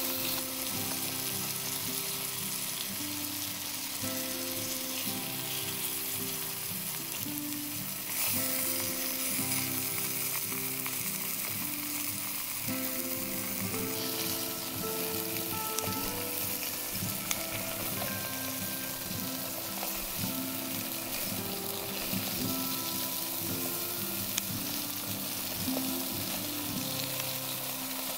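Pork intestines, octopus and beef sizzling on a hot foil-lined griddle: a steady frying hiss, with background music playing a slow melody.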